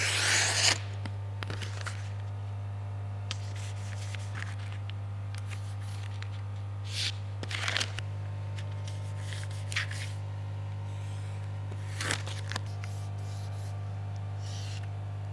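Application tape pulled off its roll with a rasp in the first second, then a handful of brief scrapes and rustles as pieces are cut with a snap-off craft knife and pressed onto vinyl. A steady low hum lies under it all.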